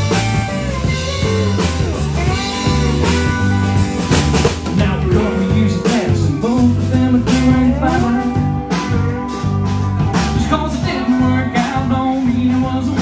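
A live rock band playing: electric guitars, bass guitar and drum kit, with a lead line whose notes bend and slide up and down in pitch over a steady bass and drum groove.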